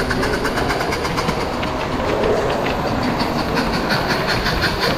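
Live steam model locomotive running along the track with a fast, even beat.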